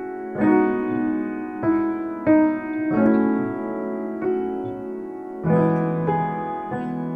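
Background piano music: a gentle melody with a new note or chord struck about once a second.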